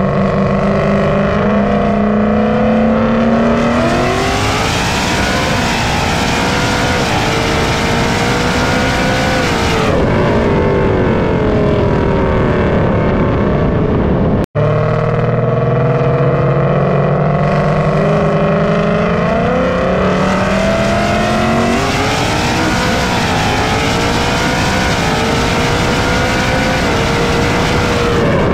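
Supercharged 2020 Mustang GT's 5.0 V8 (ESS G3X supercharger, headers, X-pipe) at full throttle, its pitch climbing and dropping back with each upshift as it pulls hard. There is heavy wind rush on the microphone. The run cuts off abruptly about halfway through and a second identical full-throttle pull begins.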